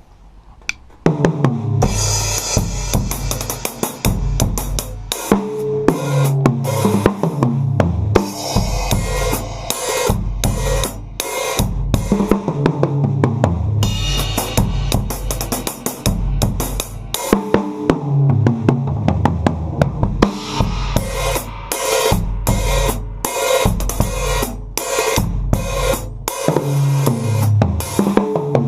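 An acoustic drum kit with bass drum, snare, hi-hat and cymbals, heard without microphones, playing a steady groove along with a recorded song that carries a bass line. The playing starts about a second in.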